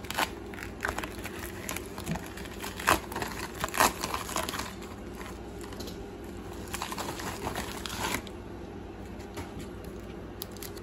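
Black plastic bubble mailer being handled and opened by hand, crinkling and rustling unevenly, with a few sharp crackles.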